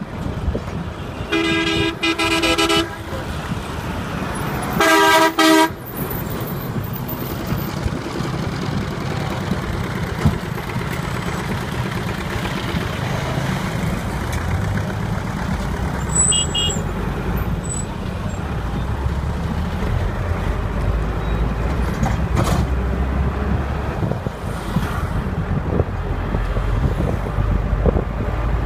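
Traffic heard from a moving bus: a vehicle horn sounds twice in the first few seconds, first a blast of about a second and a half, then a shorter, louder one. After that there is only the bus's steady engine and road rumble, which grows heavier in the second half.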